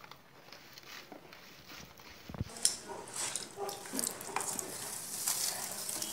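Hands kneading moist bhajani flour dough on a steel plate: soft, irregular wet squishing and pressing. The sounds are faint at first, then come busier and louder after a single knock about two and a half seconds in.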